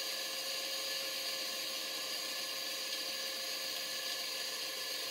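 Stuart No. 4 model steam engine running steadily under steam, its exhaust note clear now that the condenser has been drained of condensate. A constant hiss with a steady high whine runs under it.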